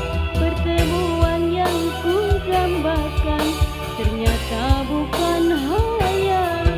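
Amplified dangdut song: a woman sings an ornamented, wavering melody into a microphone over a backing with a steady bass and regular drum hits.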